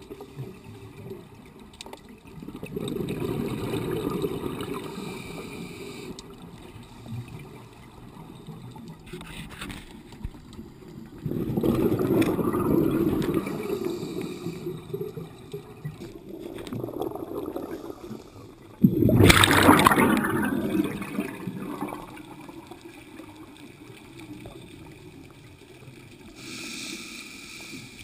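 Scuba divers' exhaled bubbles from their regulators, heard underwater: bursts of bubbling every few seconds over a low hiss, the loudest about two-thirds of the way in.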